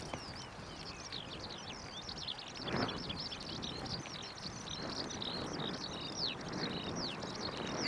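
Songbirds chirping continuously in quick, high, mostly falling notes over a faint background hiss, with a soft swell of noise about three seconds in.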